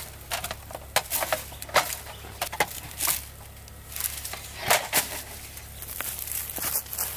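Irregular crackling and rustling from handling a GoSun Sport solar cooker: its thin reflector wings crinkling as they are folded around the glass tube, and dry pine needles crunching underfoot and under the hands.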